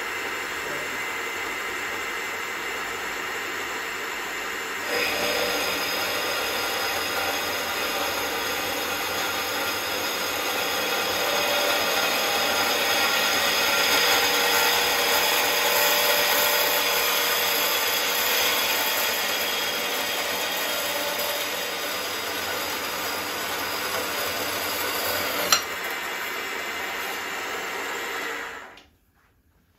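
Epple BS 125 GS metal band saw running and cutting through metal, with a steady, many-toned motor and blade sound that gets louder about five seconds in as the blade works through the stock. The cut is made dry, without cutting oil. The saw stops shortly before the end.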